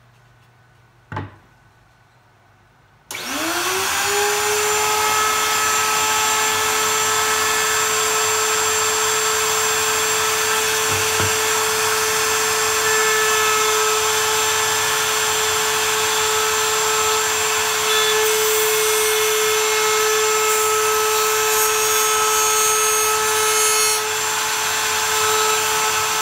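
A click about a second in, then a table-mounted router starts about three seconds in, its whine rising quickly to a steady high pitch. It runs on while a flush-trim bit trims a barn-wood piece along a hardboard pattern, with rougher cutting noise in the later part.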